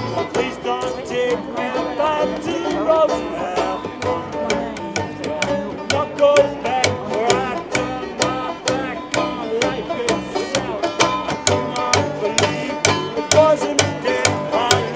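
Lively acoustic string-band music: quick plucked notes over a steady pulsing bass, with a melody line that bends and slides in pitch.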